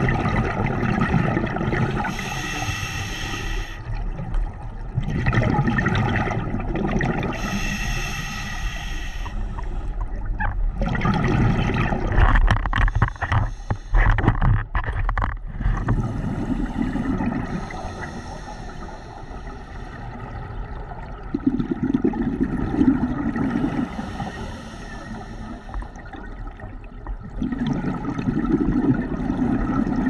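Scuba diver breathing underwater through a regulator: a hissing inhalation, then a rumble of exhaled bubbles, in a slow cycle about every five or six seconds. A run of sharp crackling bubble sounds comes about halfway through.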